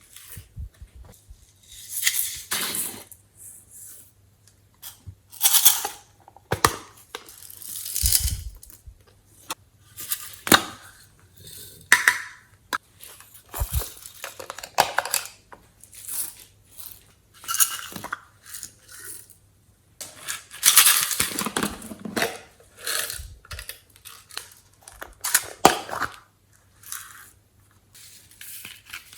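Glossy slime being worked by hand, with irregular bursts of sticky, crackly squishing and popping and short pauses between them.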